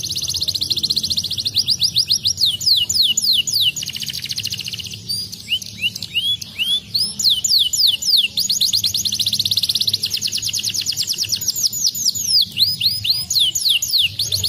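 Domestic canary singing: fast trills and rapid runs of short downward-sliding whistled notes, phrase after phrase, with only a brief lull about four seconds in.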